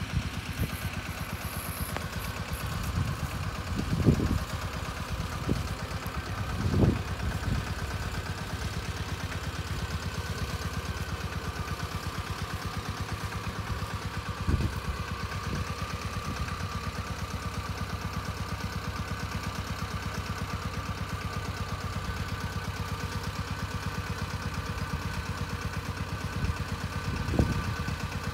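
Tomo Vinković 821 tractor's diesel engine running steadily with an even pulse while it drives an orchard mist sprayer, a steady high whine over it. A few louder low thumps come through, about 4, 7, 14 and 27 seconds in.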